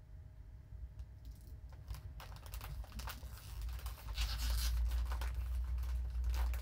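Scattered soft clicks and rustling from hands working at a desk, growing louder with a low rumble from about four seconds in.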